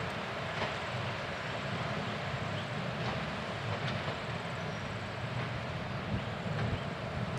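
RM56 railcar running toward the listener, a steady engine drone with faint wheel noise on the rails.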